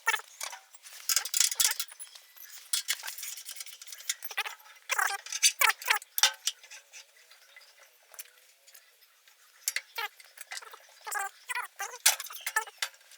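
Irregular metal clinks and knocks of tools and machine parts being handled while a rice milling machine is assembled.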